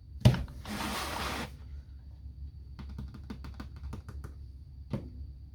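Handling noises from a diamond painting canvas: a sharp click, a short rustle, then a quick run of light taps and one last click.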